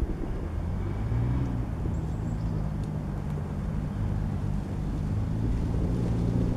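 A steady low engine hum, with wind rumbling on the microphone.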